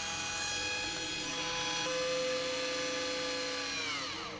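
Point-and-shoot film camera powering up on fresh batteries: a loud electric whine from inside the camera that rises in pitch as it starts, holds steady for about four seconds, then falls away as it stops, a sign the camera works.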